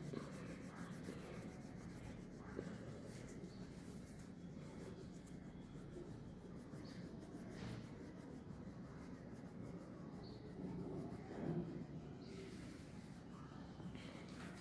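Yellow pastel crayon rubbed back and forth over sketchbook paper, colouring in a drawing: a faint, steady rubbing.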